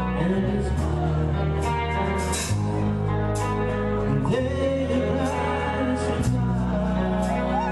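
Live rock band playing a song with a singer: guitar chords and bass changing every couple of seconds, with drums and cymbal hits.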